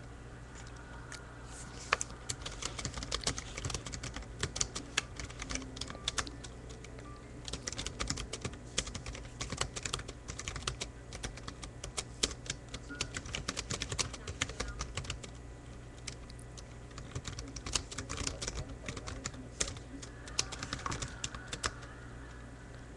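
Typing on a computer keyboard: quick runs of key clicks with short pauses between them, over a low steady hum.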